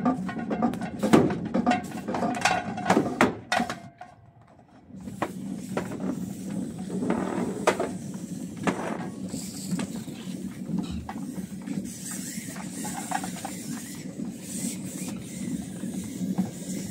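Hose being wound onto a van-mounted hose reel: a few seconds of knocking and clattering at the reel, then a steady low hum with the hose dragging as it winds in.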